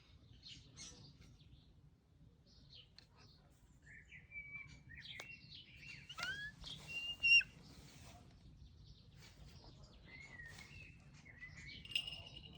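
Small wild birds chirping, with a saker falcon giving chirping calls of its own among them: scattered short chirps and rising and falling whistles, the loudest a sharp chirp about seven seconds in.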